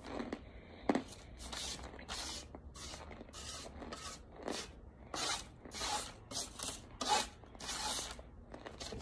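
Spoon scraping and breaking up cornstarch chunks and powder on a tabletop: a run of short gritty scrapes, about two a second.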